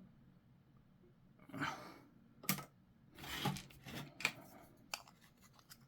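Scattered small plastic clicks and taps, a plastic miniature being handled and pressed onto its plastic base.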